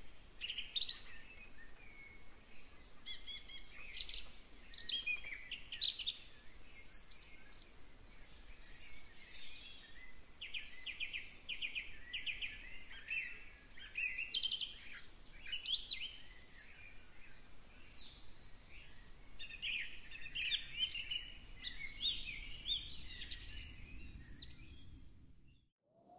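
Forest songbirds singing, a steady chorus of chirps, quick trills and high whistles, cutting off abruptly near the end.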